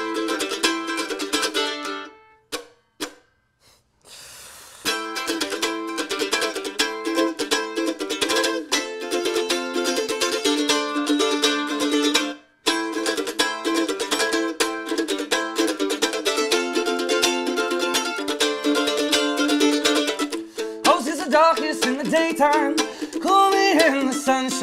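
Mandolin played with a flatpick in quick runs of picked notes, cutting out briefly twice. A voice starts singing over it near the end.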